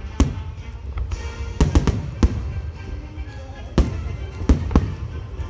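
Fireworks shells bursting in a string of about eight sharp bangs, three in quick succession about a second and a half in, over music played through large outdoor loudspeakers.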